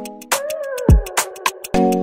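Electronic background music with a kick drum, hi-hats and sustained synth chords. About a third of a second in, the beat drops out for a gliding synth sweep, and the chords and drums come back in near the end.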